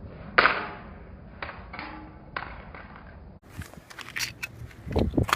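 A sharp, loud hard-plastic clatter about half a second in, then a few lighter clacks: a dropped flip phone hitting the ground and its parts knocking about. Near the end come small handling clicks and low rumbling bumps.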